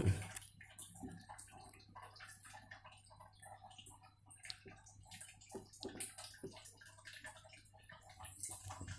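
Faint, irregular light ticks and scratches of a baby Asian water monitor's claws on newspaper and the plastic walls of its container, with one louder knock right at the start.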